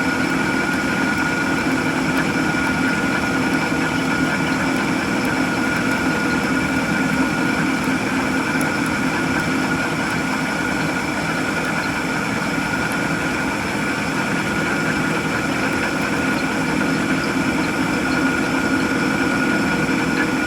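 Machine tool running steadily while machining a metal brake bracket: an even mechanical hum with a constant high whine, and a single click near the end.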